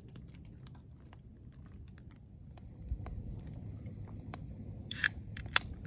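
Wood campfire crackling: scattered small ticks and snaps, with two louder sharp pops near the end, over a low rumble of wind on the microphone.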